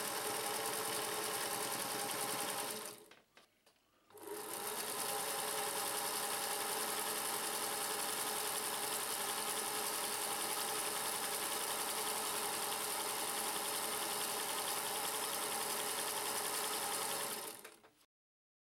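Singer 221 Featherweight sewing machine running steadily while stitching through fabric. It breaks off for about a second around three seconds in, starts again, and fades out near the end.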